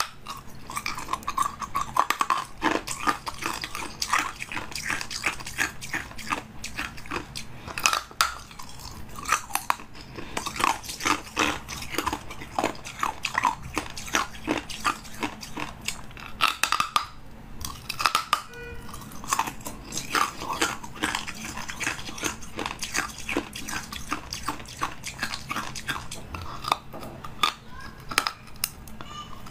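Close-up biting and crunching of a frozen ice block: sharp cracks and crunches in quick runs, with short pauses between bites.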